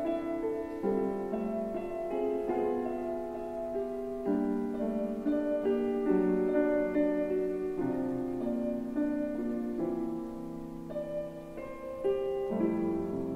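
Slow piano music with held chords and a gentle melody line.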